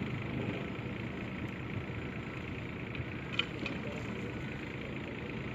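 Backhoe diesel engine running steadily, with one short click about halfway through.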